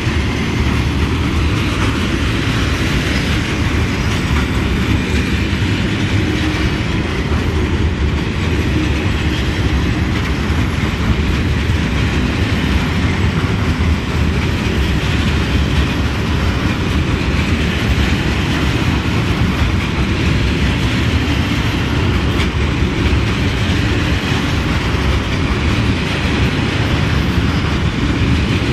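Freight train of covered sliding-wall wagons rolling past close by at steady speed: a loud, steady rumble of wheels on rail.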